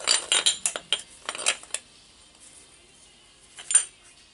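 Metal parts of a rotary hammer's gearbox clinking and rattling as the housing is turned and the gear and connecting rod are worked into place. A quick run of sharp clinks over the first couple of seconds, then one more clink near the end.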